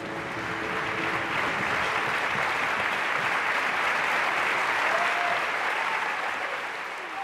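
Large theatre audience applauding. The clapping swells over the first seconds, holds, then fades near the end.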